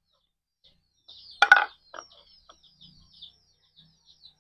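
Small birds twittering in a quick run of short high chirps. A short, loud squawk cuts in about a second and a half in, with a fainter one just after.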